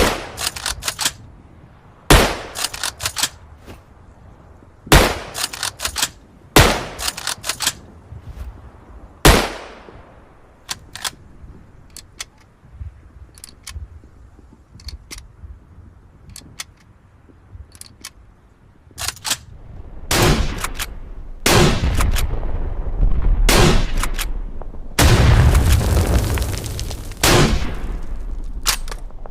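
Springfield rifle firing: loud single shots a couple of seconds apart, each followed by a few smaller cracks, then light clicks, then a denser run of shots over a low rumble near the end.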